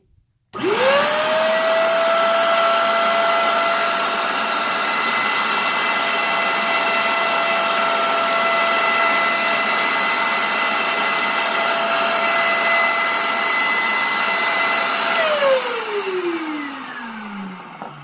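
Hoover FH11400 Spotless portable carpet cleaner's suction motor switching on and spinning up to a steady whine with a rushing hiss while it runs its self-cleaning cycle, drawing clean water through the hose into the dirty-water tank. About fifteen seconds in it is switched off and winds down, the whine falling in pitch.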